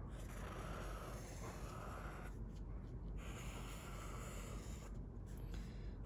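Felt-tip marker drawing long strokes on sketchbook paper, a soft steady scratching that breaks off briefly twice, about two seconds in and about five seconds in, as the pen lifts.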